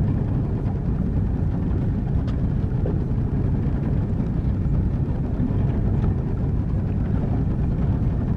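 A motorboat running underway: a steady low engine drone mixed with the rush of wind and water.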